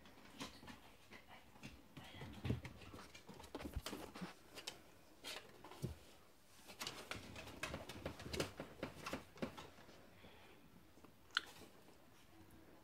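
A sleeping puppy twitching in a dream: faint, irregular little clicks and soft rustles on a towel.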